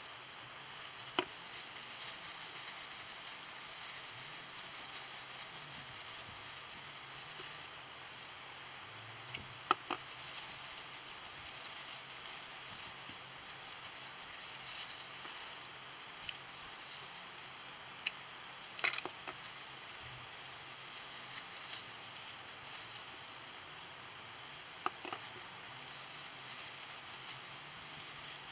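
Gloved hands rubbing and squeezing hair dye through wet hair: a steady crackling, rustling hiss, with a few sharp clicks.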